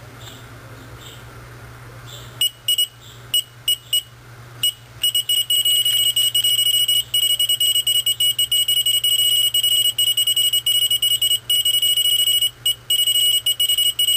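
Geiger counter kit's piezo buzzer clicking once for each count from its Geiger–Müller tube. A few scattered clicks come first, at background level. From about five seconds in the clicks come so fast that they run together into a near-continuous high buzz, as a radioactive gas lantern mantle lies against the tube.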